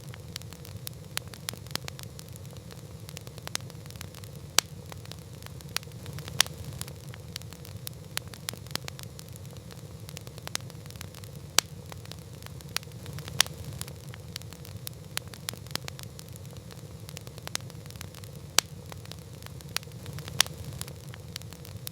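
Wood campfire crackling: irregular sharp pops and snaps, a few of them loud, over a steady low rumble.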